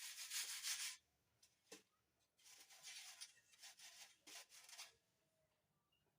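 Icing sugar being worked through a sieve: a short spell of scraping at the start, a single knock, then a longer spell of rhythmic scraping and rubbing as the sieve is shaken or rubbed to break up the lumps.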